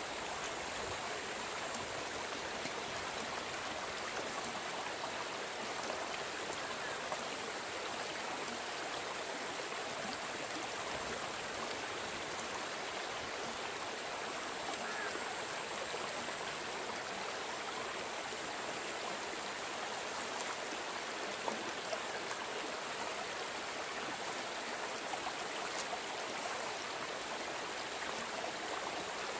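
Shallow stream water rushing steadily over the gravel bed, with water washing in and out of a plastic gold pan being panned for placer gold.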